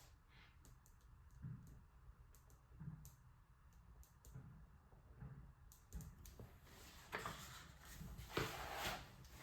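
Quiet handling noises: scattered light clicks and soft thumps, then two short rustles about seven and eight and a half seconds in.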